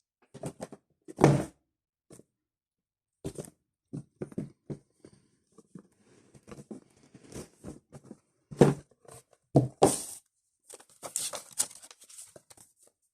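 A box and its packaging being handled: an irregular run of knocks, taps and rustling, with louder thuds about a second in and again around nine to ten seconds.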